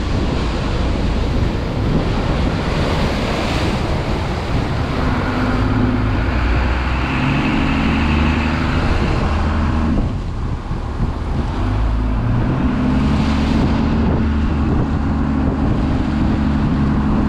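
A fishing boat's engine runs steadily under the rush of surf and foaming water against the hull, with wind buffeting the microphone. There is a brief dip in the water noise about ten seconds in.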